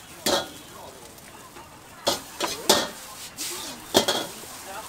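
Metal wok ladle clanking sharply against a steel wok, several separate strikes, as noodles are tossed and scooped, over a steady low sizzle.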